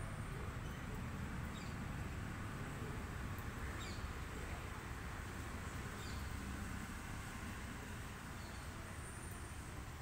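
Outdoor background: a steady low rumble with a few short, faint bird chirps scattered through it.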